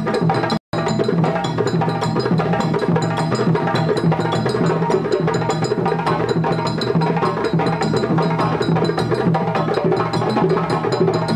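Live African drum ensemble playing a dense, steady rhythm of drums and sharp clicking percussion. The sound cuts out for an instant about half a second in.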